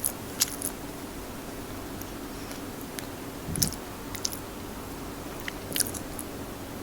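Close-miked chewing and biting of food, with scattered sharp wet mouth clicks and smacks.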